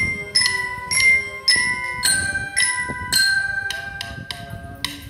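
A glockenspiel (bell lyra) played note by note, about two struck metal-bar notes a second, each ringing on into the next in a simple melody.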